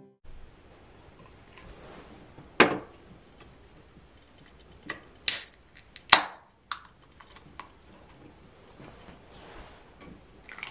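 A Kronenbourg 1664 Blanc beer can and glasses handled on a glass-topped table: scattered clicks and knocks, the loudest about two and a half and six seconds in, and a sharp crack with a brief hiss about five seconds in as the can's tab is pulled open.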